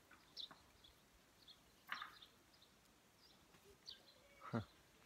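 Near-quiet outdoor air with faint, scattered short bird chirps, and two brief louder sounds: one about two seconds in and a stronger one near the end.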